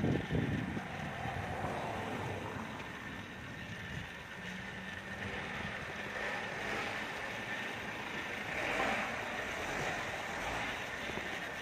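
Steady rushing noise of wind and rolling tyres during a bicycle ride, with a faint low hum for a couple of seconds about four seconds in.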